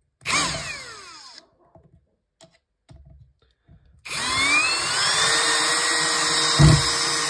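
Parkside Performance PABSP 20-Li C2 20 V brushless cordless drill/driver driving screws. A short burst at the start whines down over about a second. About four seconds in the motor starts again, its whine rising and then holding steady, with two dull thumps near the end.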